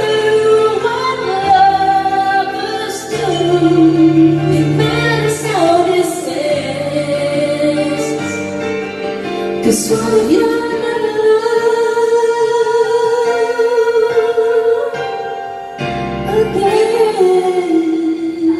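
A woman singing karaoke into a microphone over a backing track, her voice amplified through the room's speakers. Her melody moves in held and sliding notes, with one long held note about halfway through.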